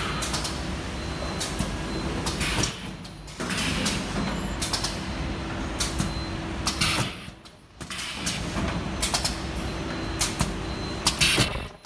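Webbing cutting and welding machine running: a steady mechanical hum with frequent irregular clicks and knocks, dropping away briefly twice.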